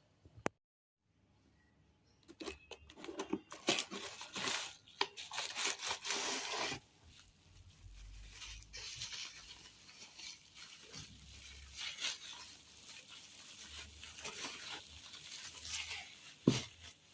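Parcel packaging torn open and crinkled by hand: loud tearing and crackling for a few seconds, then quieter rustling and crinkling. A single sharp knock comes near the end.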